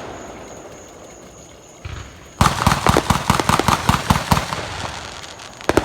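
Fireworks going off: a dull thump about two seconds in, then a rapid volley of sharp pops and crackles that thins out over about three seconds, with a couple of loud bangs near the end.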